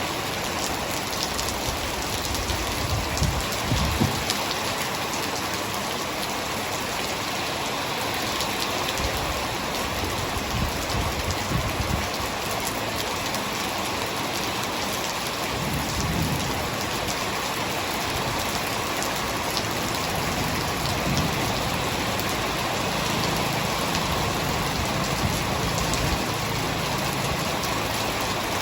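Hard rain falling steadily, a dense even hiss of drops, with a few brief low rumbles.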